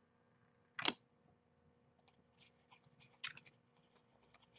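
Trading cards being handled: a sharp snap about a second in, then faint rustling and light clicks of card stock, with a short cluster of clicks past the three-second mark.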